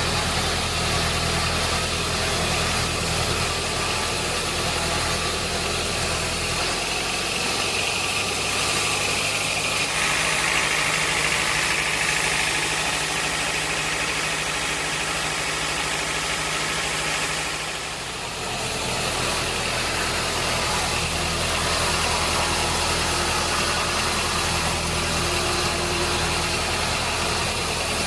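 Sawmill machinery running steadily with a constant motor drone. For about ten seconds in the middle the low hum thins and a higher whine comes in, then the drone returns after a brief dip.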